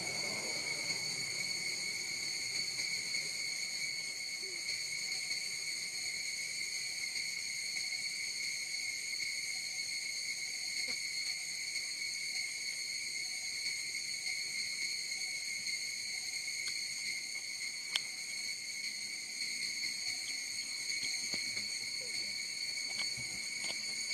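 Insects droning with a single steady high-pitched tone that never wavers, with a single sharp click about three-quarters of the way through.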